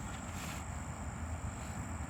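Outdoor background: a steady low rumble under a faint, steady high-pitched insect trill.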